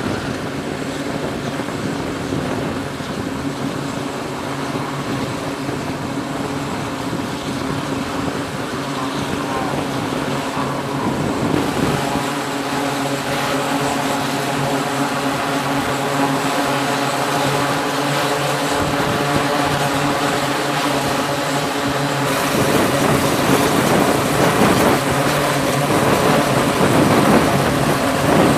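E-2D Advanced Hawkeye's twin Rolls-Royce T56 turboprop engines running on the ground with the eight-bladed propellers turning: a steady drone with a stack of steady propeller tones. The sound shifts abruptly about a third of the way in and again about two-thirds in, getting louder and noisier near the end.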